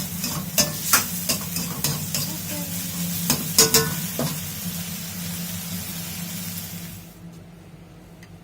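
Pork and holy basil stir-frying in a pan, sizzling steadily while a metal spatula is worked through it, clacking against the pan several times in the first few seconds. The sizzle stops about seven seconds in, leaving a steady low hum.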